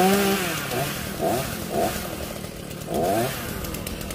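Chainsaw running at full throttle drops back to idle about half a second in, then gets several short throttle blips, the biggest about three seconds in.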